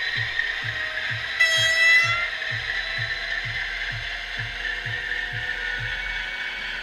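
Sound decoder of a Piko H0 model of the class 130 "Ludmila" diesel locomotive, with a short horn blast about a second and a half in that is the loudest sound. Under it runs a steady mechanical clicking about twice a second, and a low steady tone comes in past the middle.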